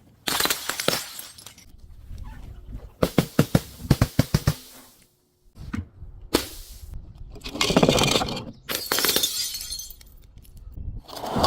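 Glass bottles breaking and shattering in several separate loud bursts, with a quick run of sharp cracking clicks in the middle.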